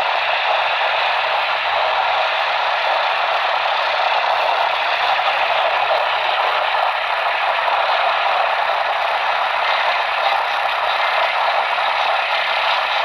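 Radio static from a receiver with poor reception: a steady, loud hiss, thin and band-limited as through a small speaker, with no clear speech or alert tones coming through.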